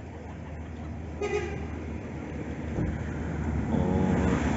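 Road traffic: a vehicle horn toots briefly about a second in, over the low running of vehicle engines. Another engine grows louder toward the end.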